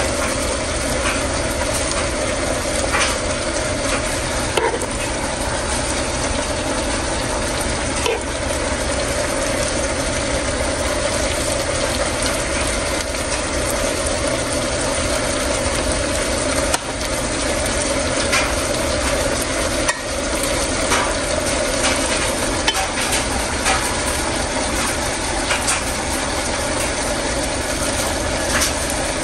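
A metal spoon scraping and clicking against a pan now and then as stir-fried beef tendon is scooped out, over a steady hiss.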